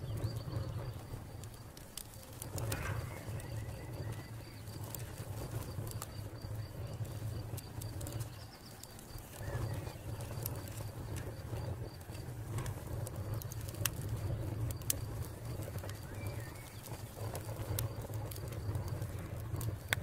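Fire crackling: scattered sharp pops and snaps over a steady low rumble.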